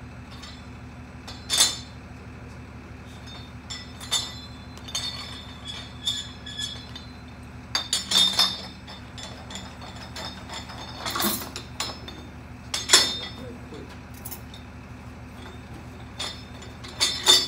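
Steel hand tools clinking and knocking against the steel fluid end of a plunger pump as a green T-handle tool is worked into a valve bore to take out the valve and spring. The clinks come singly and in small clusters, irregularly spaced, the loudest about 13 seconds in, over a steady low hum.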